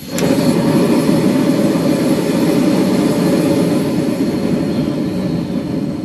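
Gas stove burner lit with a long-nose lighter: a click, then the flame catching at once into a steady low roar, which slowly eases off near the end.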